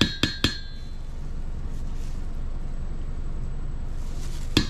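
Metal spoon tapping against a stainless steel mixing bowl while scooping gochujang paste: three quick ringing clinks at the start and another right at the end, with a steady low background hum between.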